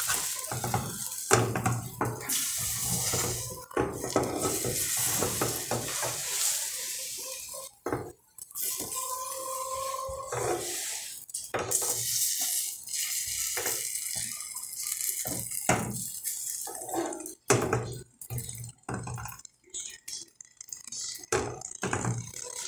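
Egg-soaked bread frying in an aluminium pan, sizzling, with a metal spoon scraping and knocking against the pan.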